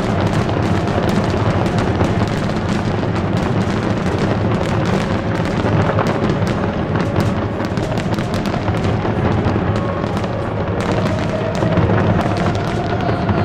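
Fireworks display: a dense barrage of many overlapping bangs and crackles with no break.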